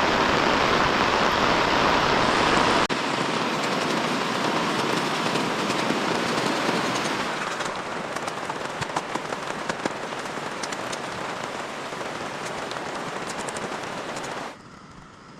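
Heavy rain falling in a dense steady hiss, in several cut-together takes. From about halfway on, sharp ticks of individual drops stand out, and near the end the rain drops suddenly to a much quieter level.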